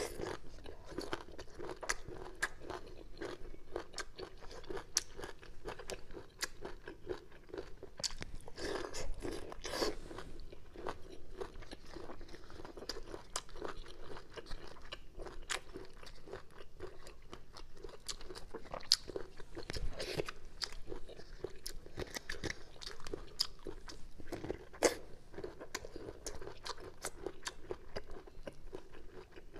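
Crisp hand-peeled bamboo shoots being bitten and chewed, a steady run of small crunches, with a few louder crunching bites about a third and two-thirds of the way through.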